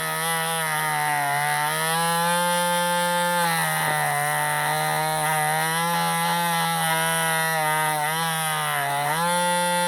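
Cordless rotary tool running a small steel wire brush against a die-cast alloy casting, scrubbing off surface corrosion: a steady motor whine whose pitch sags briefly a few times as the brush takes load.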